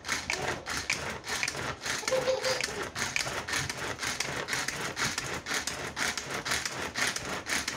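Hand-pulled string vegetable chopper being pulled again and again, each pull spinning its blades through tomatoes inside the plastic bowl with a quick rattling whir, several strokes a second.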